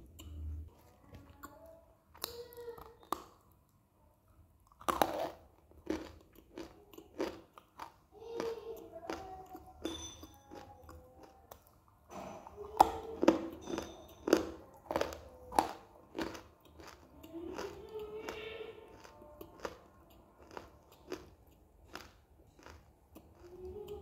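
Crunching bites and chewing of a dry, chalky mineral lump, close to the microphone: many sharp, uneven crunches, densest and loudest about halfway through.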